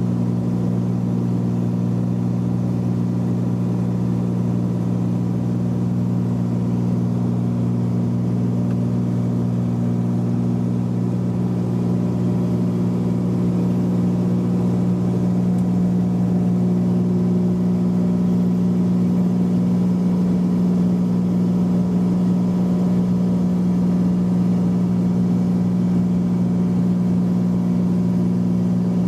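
Cessna 182's piston engine and propeller running steadily during takeoff, a constant drone that grows slightly louder about halfway through.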